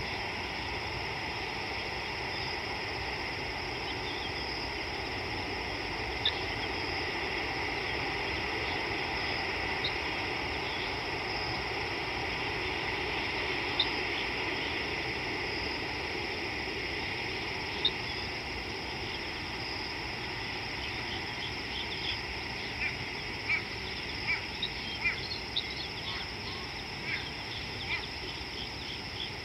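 Outdoor bush ambience: a steady high insect drone over an even hiss. A few short, sharp bird chirps come singly, then a quick run of them in the last several seconds.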